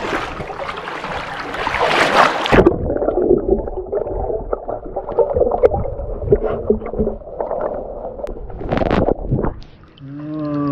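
Water splashing as a swimmer in a full-face snorkel mask ducks under, then the muffled, low sound of water gurgling and bubbling heard through a submerged camera, with a short splash about nine seconds in. A child's voice calls out near the end.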